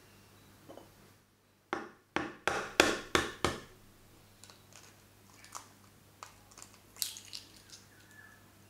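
An egg knocked sharply about six times in quick succession to crack its shell, then quieter crackles and clicks as the shell is pulled apart over a glass bowl.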